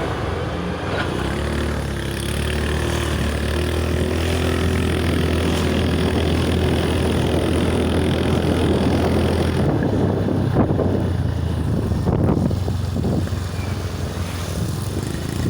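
An engine running steadily with a low hum, turning rougher and less even after about ten seconds.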